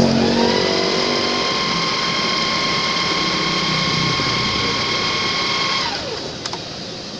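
Evercy electric sewing machine running steadily at speed while sewing a zigzag stitch, its motor a steady whine. About six seconds in it winds down with a falling pitch and stops, followed by a single click.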